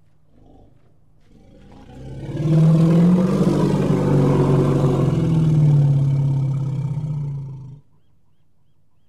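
An elephant giving one long, low call that swells up over about a second, holds for several seconds and stops sharply near the end.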